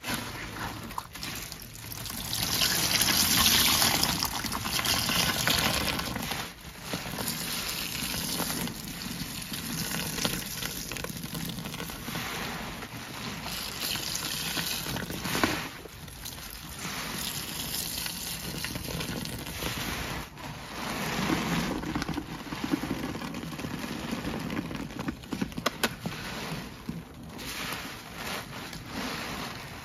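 Large sponges soaked in foamy pine-cleaner water being squeezed by gloved hands: wet squelching and liquid gushing and dribbling back into the bucket in repeated swells, with a few sharp crackles near the end.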